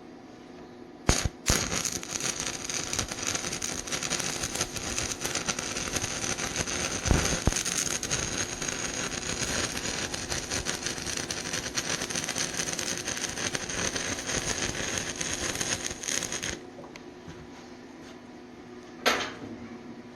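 Stick-welding arc on rusted steel pipe, a 3/32-inch rod run at 75 amps from an Everlast PowerARC 140ST. It is struck with a sharp snap about a second in, crackles and sizzles steadily for about fifteen seconds, then breaks off suddenly. A short sharp knock follows near the end.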